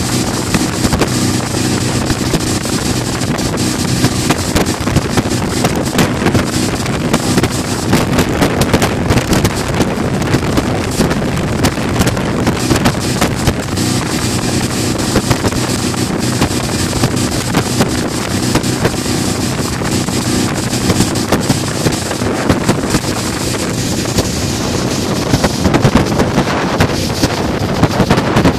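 Mercury outboard motor running steadily at speed while towing, with wind buffeting the microphone and the wake rushing behind the boat.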